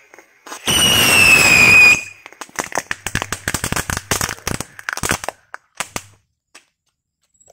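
Boat-type firecracker on water: a loud whistle lasting about a second and falling slightly in pitch, then a rapid string of crackling pops for about three seconds that thins out and stops.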